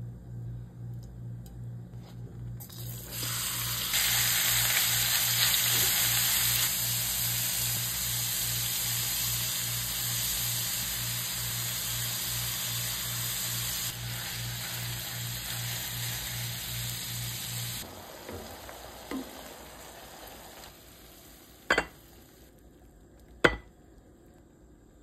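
Chopped meat sizzling as it fries in an oiled pan while it is stirred. The sizzle comes in a few seconds in, grows louder, then dies down about three-quarters of the way through. Two sharp clicks of a utensil against the pan follow near the end.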